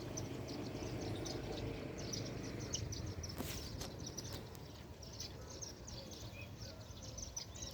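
Many small birds chirping together: a dense chatter of short, high chirps over a low background rumble, with a couple of sharper clicks near the middle.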